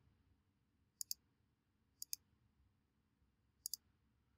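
Three computer mouse clicks, each a quick press-and-release double tick, coming about one and then one and a half seconds apart, with faint room hiss between. Each click stamps a tree brush shape onto the picture.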